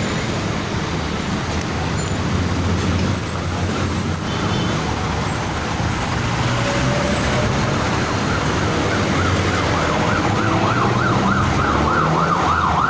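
Busy city street traffic: vehicle engines running and passing, a jeepney among them. About eight seconds in, a siren starts a fast warbling yelp, rising and falling about three times a second.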